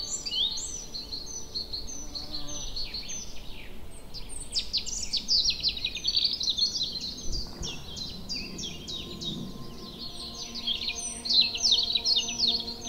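A dense chorus of many small birds chirping rapidly and continuously, their short calls overlapping. Soft sustained music notes sit underneath and become clearer near the end.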